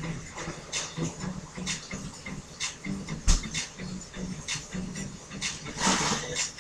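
Close handling noise of a playful kitten being rubbed and wrestled by hands: irregular rustles and scratches of fur and fingers, with a sharp bump against the microphone about three seconds in.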